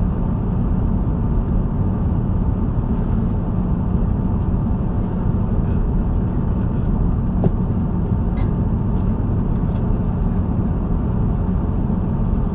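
Steady cabin roar of an Airbus A330-200 airliner in flight: engine and airflow noise, deep and even, with a faint steady tone above it and a few small clicks around the middle.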